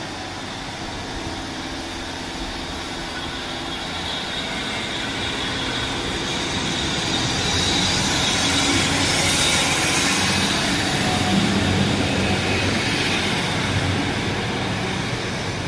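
Class 150 Sprinter diesel multiple unit passing along the platform: underfloor diesel engine and wheels running on the rails, with a high squeal over the rumble. It grows louder to its peak as it passes close by about two thirds of the way in, then eases off as it draws away.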